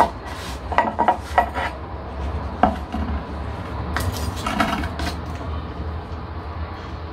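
A plastic scoop filling a small terracotta pot with gritty potting substrate: scattered clicks, taps and scraping of scoop and grit against the clay pot, and the pot and scoop knocking on a wooden board.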